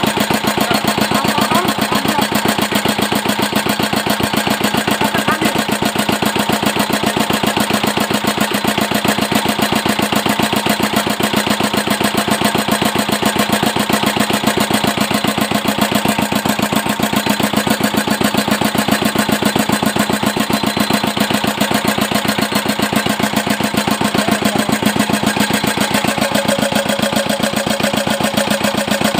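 Small single-cylinder air-cooled diesel engine running at a steady speed, its firing beats coming evenly with no surging.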